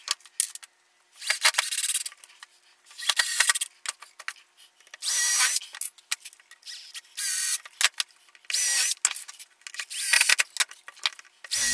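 Cordless drill spinning up in about six short bursts, each under a second, as it bores screw holes into wood, with small clicks and taps of handling between the bursts.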